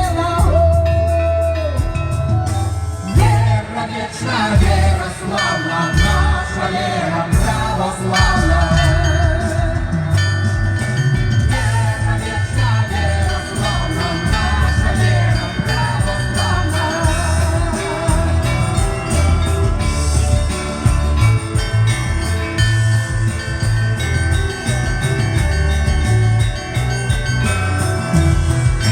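Russian Orthodox church bells rung in a continuous peal: several bells struck in quick succession, ringing on over one another, with a heavy low bell sounding underneath at a steady pace.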